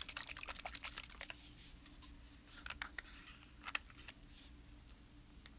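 Light clicks and taps of a Distress Stain dauber bottle being picked up and handled on a wooden table. A quick cluster of clicks comes in the first second and a half, then a few single clicks, over a faint steady hum.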